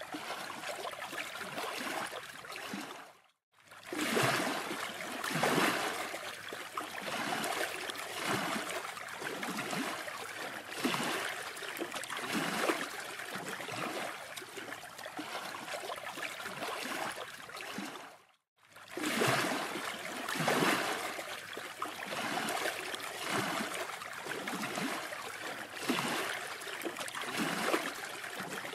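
Steady rushing wash of sea surf on a beach, swelling and easing every second or so. The sound cuts out to silence twice, briefly, about three and eighteen seconds in.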